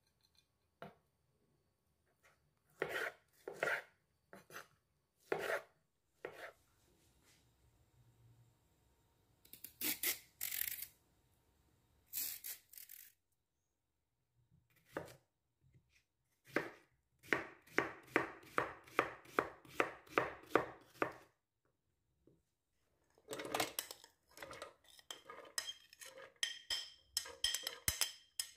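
Kitchen knife cutting fruit and vegetables on a bamboo cutting board: a few scattered cuts, then a steady run of chops at about three a second. Near the end a spoon scrapes and knocks diced beetroot off a plate into a plastic blender jug.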